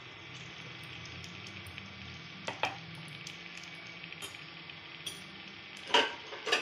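Ghee sizzling on a piece of red-hot charcoal in a small steel bowl set among tandoori chicken in a wok, a steady hiss with small crackles, the charcoal-smoking step. A light metal clink about two and a half seconds in, and two loud metal clanks near the end.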